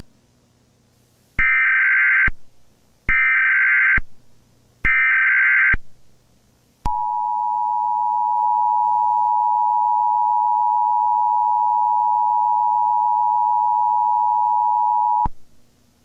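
Emergency Alert System broadcast tones: three short bursts of the SAME header's data screech, then the steady two-tone attention signal held for about eight seconds before it cuts off.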